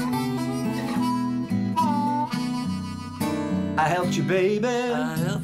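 Blues harmonica playing held and bending notes between sung lines, over acoustic guitar accompaniment.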